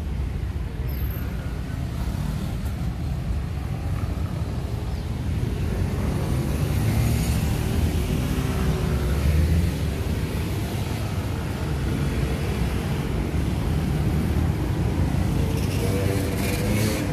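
Street traffic: cars and motorcycles passing, over a steady low rumble. Engine tones rise and fall as vehicles go by, about six seconds in and again near the end.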